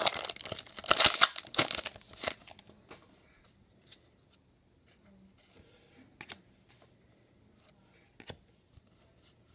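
Foil wrapper of a hockey trading-card pack being torn open and crinkled, loud for the first two seconds or so, then a few faint clicks as the cards inside are handled.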